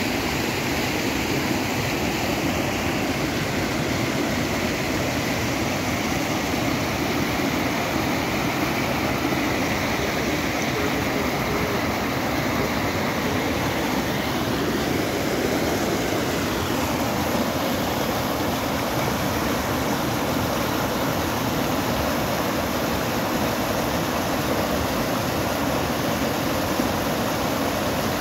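Muddy floodwater rushing over the broken edge of a submerged low concrete causeway and cascading down, a steady rush of water.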